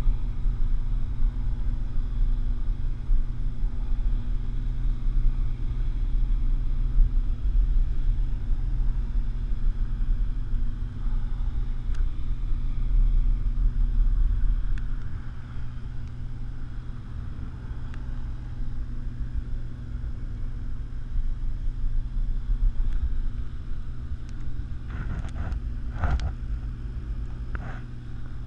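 Steady low rumble of wind on the action camera's microphone during a parasail ride, with a low steady hum under it. The rumble eases about halfway through, and a few short knocks come near the end.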